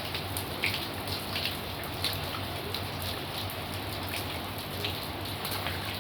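Heavy rain falling steadily on surfaces, a constant hiss with scattered individual drops splashing out above it.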